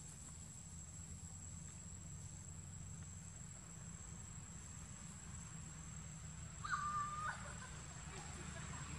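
Forest ambience: a steady high insect whine over a faint low rumble. About seven seconds in comes a single short, clear pitched call.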